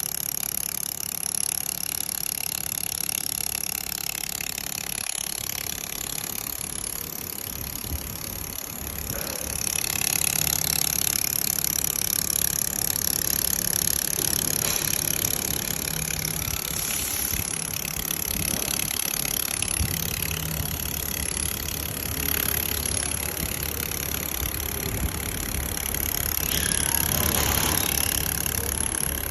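Automatic four-axis laser welding machine running: a steady mechanical hum with a thin high whine, getting a little louder about ten seconds in.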